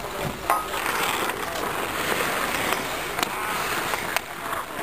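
Ice hockey skate blades scraping and carving across rink ice, with a few sharp clacks of hockey sticks striking the puck or each other.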